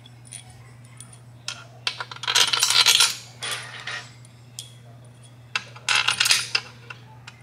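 Steel crankcase main bearing bolts clinking and rattling as they are handled and dropped into their holes in a Kawasaki ZX14 engine case. There are two bursts of metallic jingling, about two seconds in and about six seconds in, with single clicks between.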